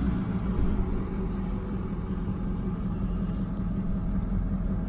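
Steady low rumble of a moving vehicle's engine and tyres, heard from inside the cab, with a low hum that weakens about half a second in.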